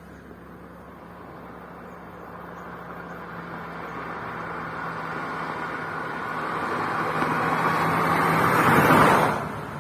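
A car approaching, growing steadily louder for about nine seconds, then passing close by and quickly dropping away.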